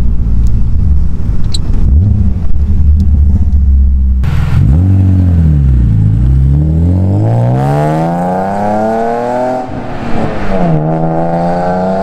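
A car engine drones steadily, heard from inside the cabin. Then the E36 BMW's swapped S52 inline-six, breathing through shorty headers, an X-pipe and a UUC TSE exhaust, accelerates away: its note dips, climbs through the revs, drops sharply at a gear change about ten seconds in, and climbs again.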